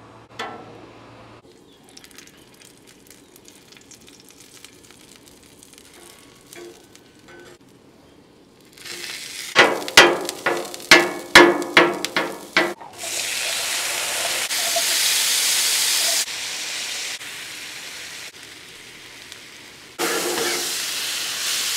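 Cooking on a hot steel flat-top griddle. After a quiet stretch, a metal spatula scrapes and chops garlic on the steel in quick strokes, about two or three a second, from about ten seconds in. Then comes loud, steady sizzling as pinto beans fry on the griddle.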